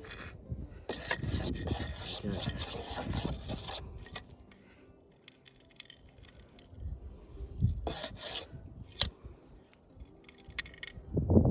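Dirt and gravel rubbing and scraping as they are shaken and stirred in a prospector's scoop while searching for a detected target. There is a long stretch of scraping at first, then a quieter pause, then a few short scrapes near the end.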